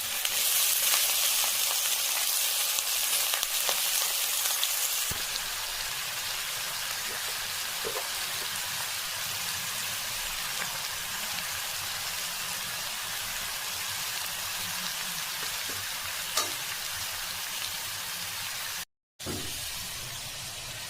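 Food frying in hot oil in a pan, a steady sizzle that is louder for the first few seconds, with occasional clicks of a utensil and one sharp tick about sixteen seconds in.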